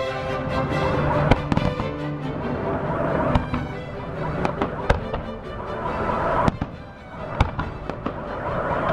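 Fireworks salute bursting, with irregular sharp bangs every second or so over music playing.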